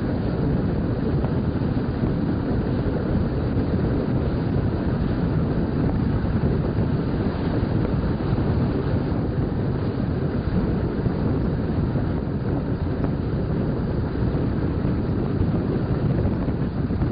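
Steady rumble and rush of a passenger train running at speed, heard from inside the carriage, with wind noise on the microphone.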